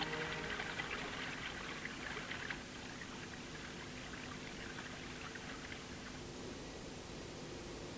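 Background music fades out, then faint water trickling and bubbling, which settles about a third of the way in into a low, steady hiss and hum.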